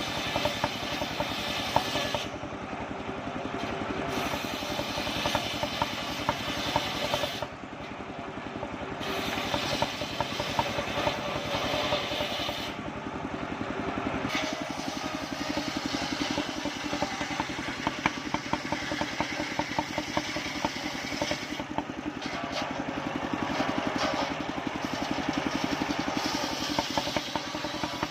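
Engine of a homemade portable circular sawmill running steadily with a fast, even beat. The level dips briefly about seven and a half seconds in.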